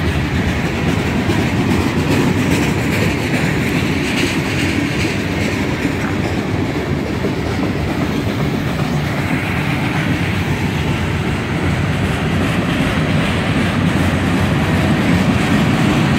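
Freight train rolling past close by, a line of open-top and covered hopper cars whose steel wheels run steadily over the rails.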